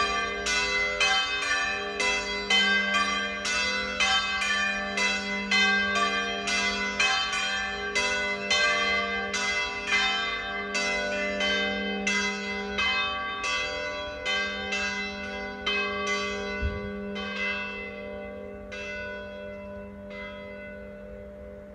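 Three church bells swinging together in a full peal (plenum), struck about twice a second. The strikes thin out and stop about nineteen seconds in as the peal ends, leaving the bells' hum to die away.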